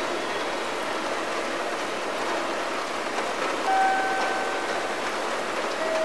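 Steady background noise of a station recording between announcements. About three and a half seconds in, a single held tone sounds for about a second.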